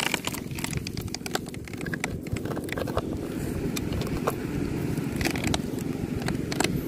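Steady low rumble with many small clicks and scrapes, as fingers dig into a rock crevice and pull out a sea snail shell.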